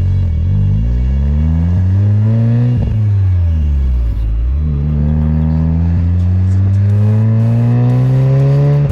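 A VW MK7 Golf R's turbocharged 2.0-litre four-cylinder accelerating hard through a non-resonated, valved Scorpion stainless-steel catback exhaust. The revs climb, drop sharply about three seconds in as the next gear is taken, then rise again in one long pull.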